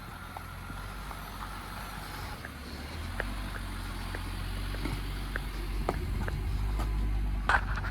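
Jeep Gladiator Rubicon in four-low with its lockers engaged, crawling up a rock ledge: a low engine rumble that grows louder about three seconds in. Scattered clicks and knocks of the tires slipping on the rock come through, bunched together near the end.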